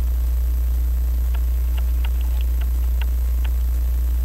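A steady low electrical hum, with faint scattered clicks of small brass clock parts and taper pins being handled on the movement.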